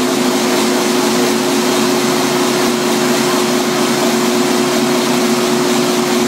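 Large inline six-cylinder stationary gas engine of a 200 kW biomass gasification generator set, running on producer gas at steady speed. The sound is loud and even, with a constant tone in it.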